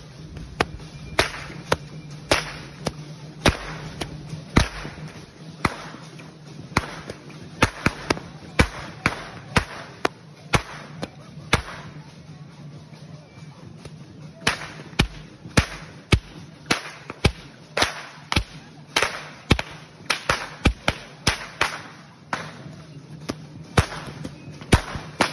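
Dancers' chicote whips cracking again and again: sharp, irregular cracks, one or two a second and sometimes in quick pairs, with a short lull about halfway through.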